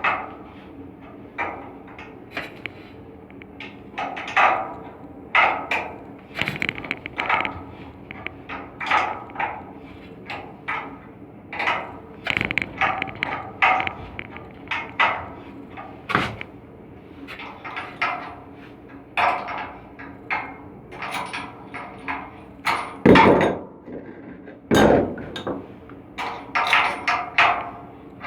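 Irregular metal knocks and clangs, several a second, each with a brief ringing tail, from tools striking the steel parts of an air handling unit blower during a V-belt change; the two loudest come about 23 and 25 seconds in. A steady low hum runs beneath.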